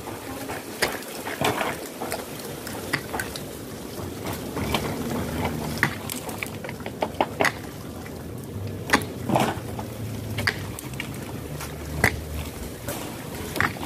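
Irregular clicks and knocks of plastic pipes and fittings being handled during plumbing work, with a low hum running through the middle few seconds.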